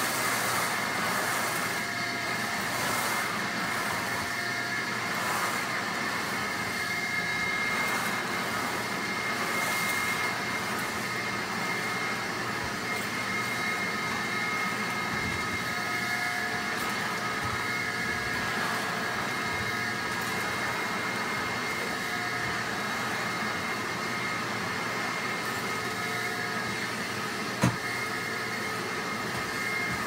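A 1956 Electrolux Automatic E canister vacuum cleaner running steadily with a constant high whine as its floor nozzle picks up scattered white bits from a rug. One sharp knock comes near the end.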